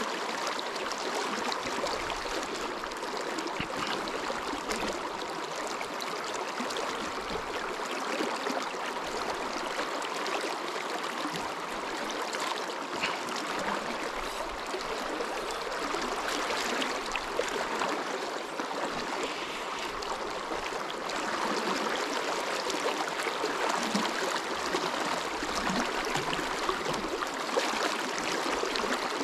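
River current flowing and lapping close by, a steady rush of moving water with no breaks.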